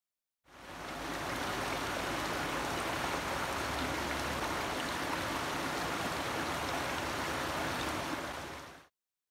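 Rocky mountain creek rushing over stones: a steady, even rush of water that fades in about half a second in and fades out just before the end.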